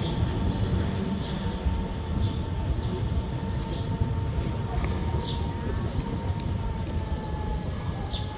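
Mobility scooter running along a park path: a low rolling rumble with a thin steady motor whine that stops about seven seconds in. Short, high, falling bird chirps come every second or so over it.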